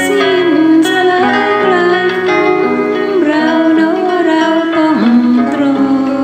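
Acoustic guitar played fingerstyle, plucked notes ringing under a gliding, wavering melody line sung over it.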